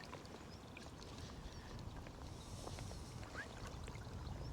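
Wind rumbling on the microphone over the steady rush of the river, with a few faint bird chirps.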